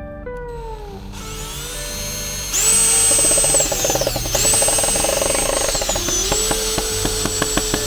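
Cordless drill driving a screw into wood, its motor whine rising then sagging in pitch twice under load, with rapid clicking near the end.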